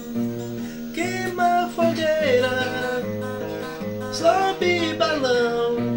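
Music: the start of a forró song, acoustic guitar with a steady pulsing bass line, and a sliding lead melody coming in about a second in.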